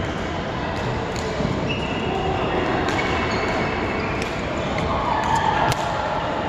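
Badminton rally: rackets strike the shuttlecock with sharp clicks several times, with short squeaks of shoes on the court floor over a steady hall noise.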